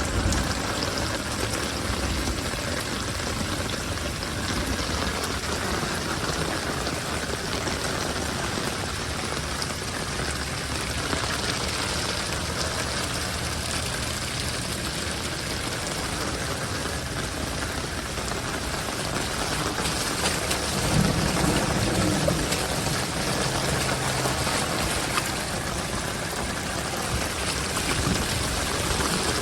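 Steady rain falling, with flowing floodwater, an even hiss.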